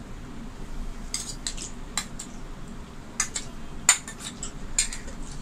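Steel spoon clinking against a stainless steel bowl and plate as curry is spooned out: several short clinks, the loudest a little before four seconds in.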